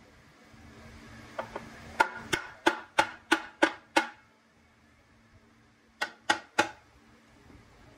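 Hammer striking metal: a run of about seven evenly spaced blows, about three a second, then three more after a short pause, each with a brief metallic ring.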